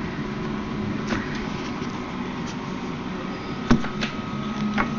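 Three sharp clicks from a pry tool working the iPhone 3GS display assembly up out of its frame, the loudest about two-thirds of the way through, over a steady low hum.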